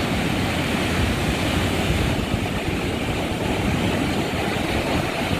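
Steady rush of ocean surf on a beach, with wind rumbling on the microphone.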